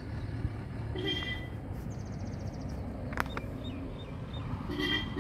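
Birds calling outdoors over a steady low background rumble: two short calls, about a second in and near the end, a brief buzzing trill, a few faint chirps, and a single sharp click a little after three seconds.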